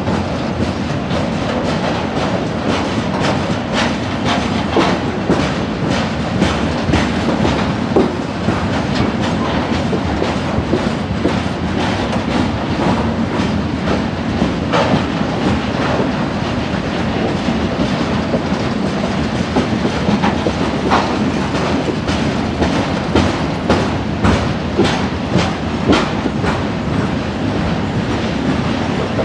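A freight train of covered hopper wagons rolling past slowly. The wheels give a steady rumble, with irregular sharp clicks and knocks as they cross the rail joints.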